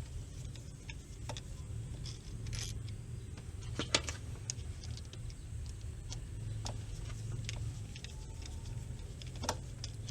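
Scattered small clicks and taps of hands and tools handling parts, the sharpest about 4 s in and again near the end, over a steady low hum.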